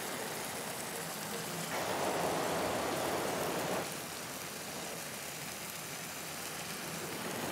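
Whole chicken frying in oil in a wide steel pot, a steady sizzle, turned with wooden spatulas. It grows louder for a couple of seconds about two seconds in, then settles.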